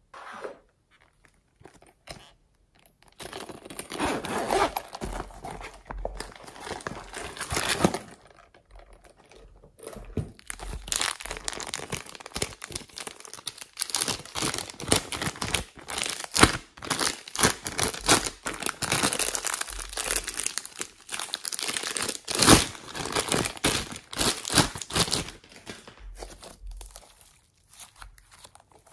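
A small plastic zip-lock bag crinkling and rustling as fingers open and handle it, mixed with the sticky clicks and crackles of slime being squeezed and stretched by hand. The crackling comes in dense, irregular runs with short pauses.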